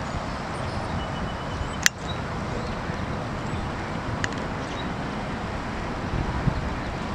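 Steady rushing outdoor background noise, with a sharp click about two seconds in and a fainter one about four seconds in.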